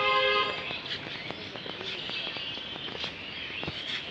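A vehicle horn toots once, briefly, at the start. After it come scattered light clicks and faint bird chirps.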